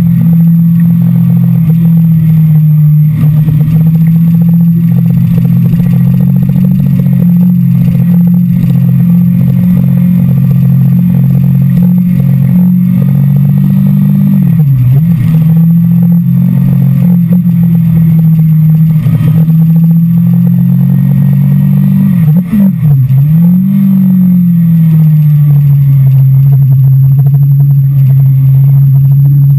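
Sport motorcycle engine running steadily under the onboard camera, in second gear on a track. Its note dips briefly and climbs back twice, about halfway and about three quarters of the way through.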